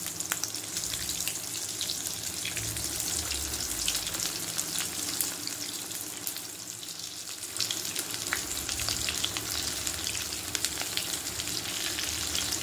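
Beetroot kola urundai balls deep-frying in hot oil: a steady sizzle full of small crackling pops. It dips briefly and swells again about eight seconds in, as more balls go into the oil.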